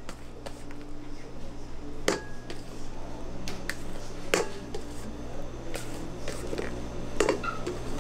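Plastic spatula scraping thick macaron meringue out of a metal mixing bowl, with a handful of sharp knocks and clinks of spatula and bowl rims against stainless steel, over a steady low hum.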